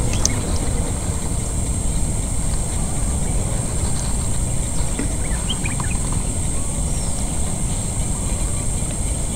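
Wind rumbling on the microphone over a continuous high-pitched insect drone, with a few faint ticks about five seconds in.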